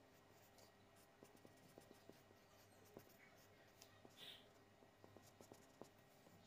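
Faint scratching and ticking of a purple Dollar Neon highlighter's felt tip on paper as it colours in, over a low steady hum.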